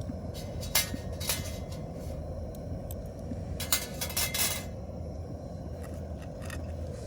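Hard camping gear being handled: short clusters of clinks and scrapes, one about a second in and a louder one around the middle, over a steady low rumble.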